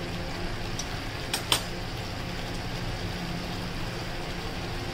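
Masala paste simmering in a kadhai over a gas flame: a steady hiss under a low, steady machine hum, with two short clicks about a second and a half in.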